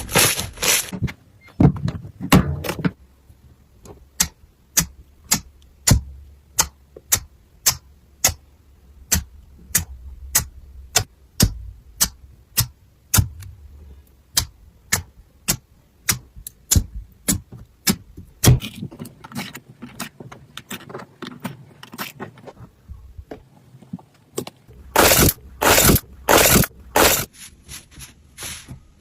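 Slime being handled and pressed, making a long run of sharp clicks and pops at about two a second, with several louder, longer bursts near the end.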